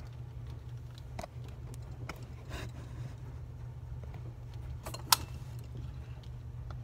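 A few light clicks and taps from handling, the sharpest a little after five seconds in, over a steady low hum.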